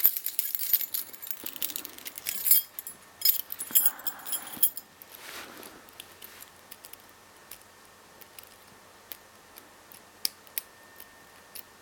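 Homemade hacksaw-blade lock picks and tension wrench working the pins of a 5-pin padlock, metal clicking and rattling against metal. Dense clicking and rattling for about five seconds, then only occasional single clicks.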